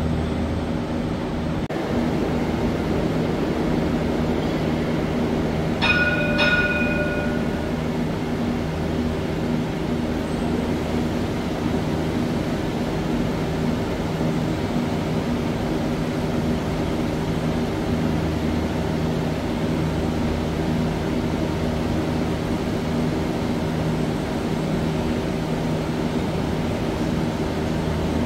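Steady electrical hum of light rail trams standing at an underground platform, holding several even low tones. About six seconds in, a brief two-note chime sounds.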